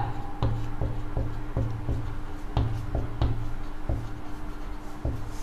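Marker pen writing on a whiteboard: a run of short, irregular strokes and taps, over a faint steady low hum.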